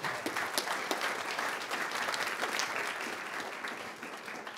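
Audience applauding at the end of a talk, a dense spread of many hands clapping that fades out near the end.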